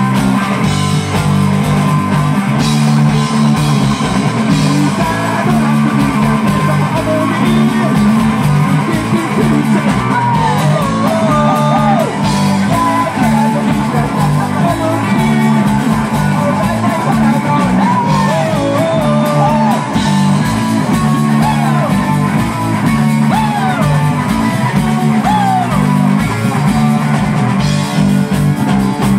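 A live rock band playing loudly: bass guitar, electric guitar and drum kit, with a man singing over them through most of the middle of the stretch.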